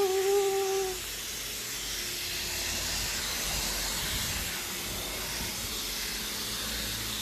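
A held sung note ends about a second in. After it, a high-pressure washer wand sprays water in a steady hiss onto an electric scooter and the wet concrete.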